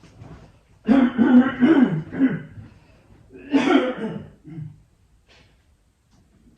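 A man coughing and clearing his throat in two rough bouts, the first about a second in and the second a little past the middle.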